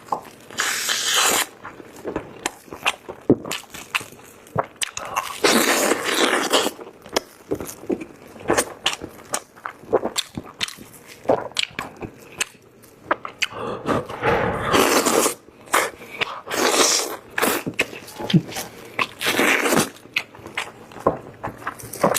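Close-miked eating of braised chicken drumsticks: bites and wet chewing with many sharp clicks, broken by several longer noisy stretches.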